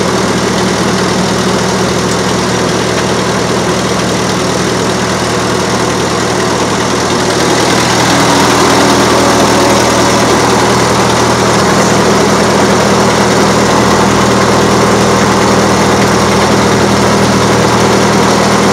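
A circular-saw sawmill running: the power unit driving the head saw makes a steady, loud mechanical drone with a constant low hum. It grows louder about eight seconds in.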